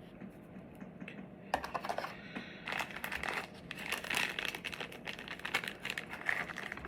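Plastic packaging crinkling as an item is unwrapped by hand, a busy irregular crackle starting about a second and a half in.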